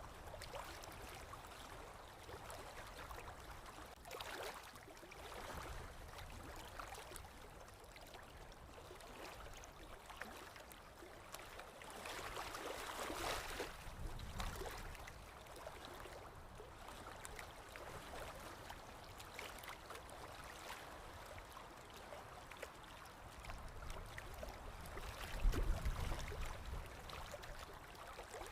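Running water, an uneven rushing that swells about halfway through, with a brief low rumble near the end.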